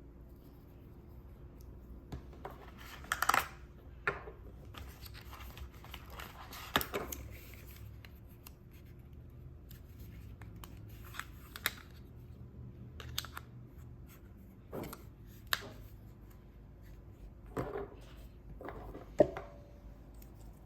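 Product packaging being handled and opened: scattered clicks, snaps and short rustles of cardboard and plastic, the sharpest about three seconds in and near the end.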